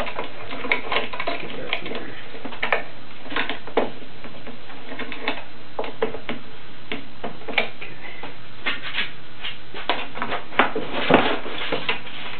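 Irregular clicks and light metal taps of steel bar clamps and pipe clamps being adjusted and tightened on a glued-up wooden window frame, with a sharper knock about eleven seconds in. A steady low hum runs underneath.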